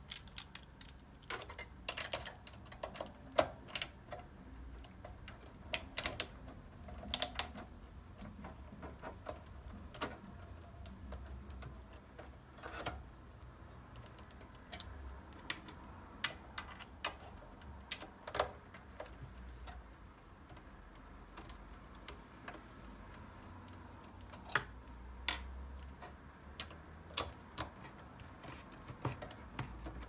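Irregular light clicks and taps of a hand screwdriver backing out the screws that hold a desktop computer's power supply, with the small metal screws set down on a wooden desk.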